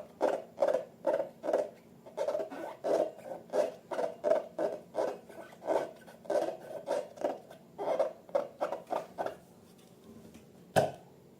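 Slime being squeezed and worked by hand, a rhythmic wet squelching about three times a second that stops near the end. One sharp click follows shortly after.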